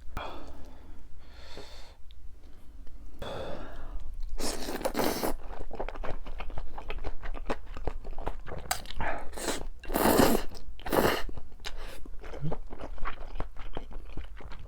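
A person eating Chapagetti noodles and green onion kimchi close to the microphone: a run of crunching and chewing noises, with a few louder bursts about four to five seconds in and again around ten seconds in.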